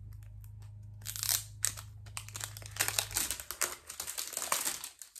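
Plastic wrapping crinkling and tearing as it is peeled off a small cardboard eyeshadow palette box: a dense run of crackles starting about a second in and carrying on until near the end.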